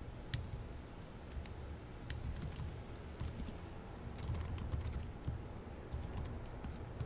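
Computer keyboard typing: scattered keystrokes, a few at a time with short pauses between, as a line of code is entered.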